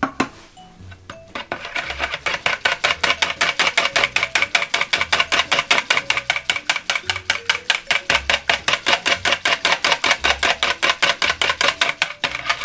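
Wire balloon whisk beating a thin milky punch mix in a plastic measuring jug: a fast, even clatter of the wires against the jug's sides. It starts about a second and a half in and stops briefly near the end.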